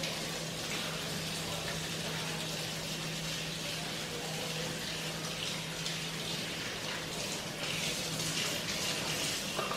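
Kitchen tap running steadily, its stream pouring into a plastic pump bottle held beneath it and splashing into a steel sink, as the dish-soap bottle is topped up with water.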